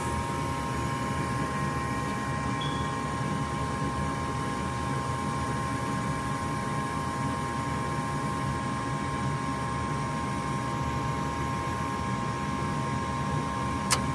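Furnace running steadily just after ignition, with its call for heat made through a jumper from R to W1 and the thermostat bypassed. Because it fires this way, the fault lies in the thermostat or its wiring. The sound is an even low rumble with a steady high whine over it, and a single sharp click near the end.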